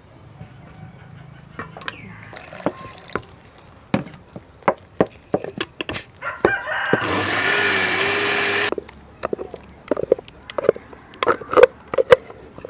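Electric countertop blender running for about two seconds, blending a thick paste with water, then cutting off suddenly. Before it, water is poured into the glass jar, and light knocks from handling the jar and lid follow.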